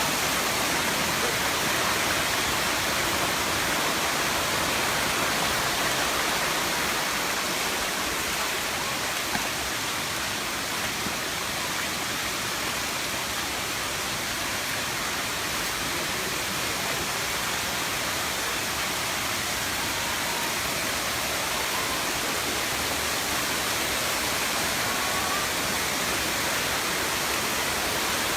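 Waterfall at Erawan Falls' seventh tier, water pouring and splashing in a steady, unbroken rush.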